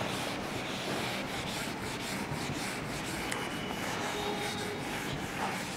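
Handheld eraser wiping marker off a whiteboard: a steady rubbing hiss of repeated strokes across the board.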